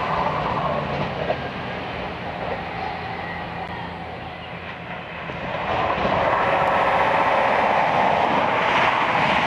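A London Midland Class 170 Turbostar diesel multiple unit moves away, its engine sound fading, then about six seconds in a CrossCountry Class 170 Turbostar passes close by at speed, loud and steady.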